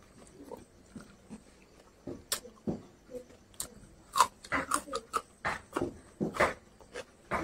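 Close-up mouth sounds of a man eating meat and raw onion: irregular chewing clicks, smacks and crunches, the loudest about four seconds in as a piece of raw onion goes into his mouth.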